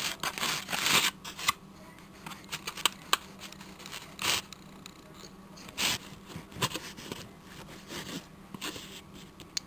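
Knife and fork cutting into a burrito on a plate. Quick bursts of scraping and cutting come in the first second and a half, then scattered scrapes and clicks of the cutlery against the plate.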